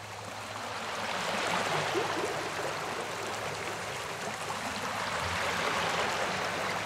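Small sea waves breaking and washing up on a sandy shore: a steady rushing of surf that swells over the first couple of seconds.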